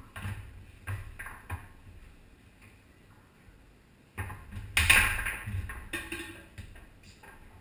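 Foosball play on a Tornado table: sharp clacks of the ball being struck by the rod men and knocking off the table walls. A few quick strikes come in the first second and a half, then a louder flurry of hits about four to five seconds in.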